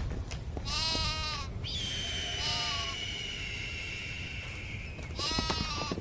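Goats bleating three times with quavering calls: about a second in, around two and a half seconds, and near the end. Between them runs a long, steady, high whistle-like tone that falls slightly in pitch.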